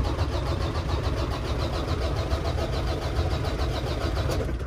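Volvo truck's diesel engine being cranked by its starter with a fast, even pulsing, without catching, until the cranking stops abruptly near the end. It is a no-start: the engine has not fired despite a new fuel pump, sensors, fuel line and valves.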